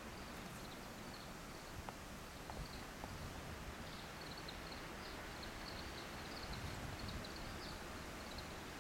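Quiet outdoor ambience: a steady low hiss with faint, high chirping scattered through it, thickest in the second half, and a few soft ticks.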